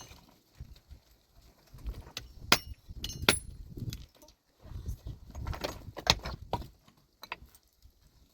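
Irregular sharp clicks and knocks of objects being handled, with a few louder knocks about two and a half and three seconds in and bouts of clatter and rustling between.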